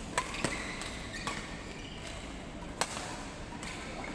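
Badminton rackets striking shuttlecocks: four sharp hits, two in quick succession just after the start, one about a second in, and the loudest a little before three seconds, over a steady low background hum.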